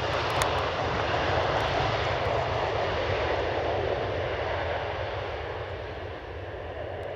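Business jet's twin rear-mounted turbofan engines running as it moves along the runway away from the listener, a steady jet noise that fades slightly in the second half.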